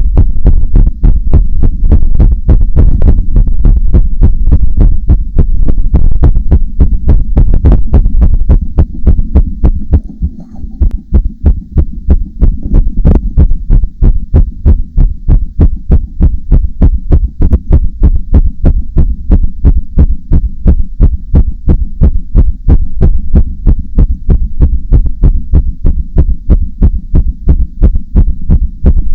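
Human heartbeat recorded close up and amplified: fast, even beats over a low hum. About ten seconds in, the level drops briefly and the beats come through thinner before settling again.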